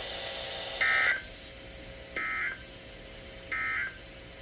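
Emergency Alert System SAME end-of-message code: three short, identical warbling data bursts about 1.4 seconds apart, the signal that closes an EAS warning broadcast.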